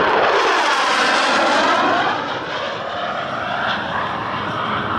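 F-16 fighter jet's engine noise as it flies past, loud with a sweeping, swirling shift in pitch, easing off slightly after about two seconds as the jet banks away.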